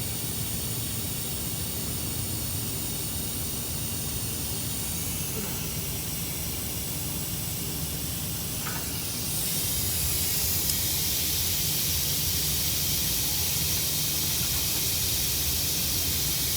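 Steady hissing noise with no distinct strikes, growing brighter and a little louder about nine seconds in.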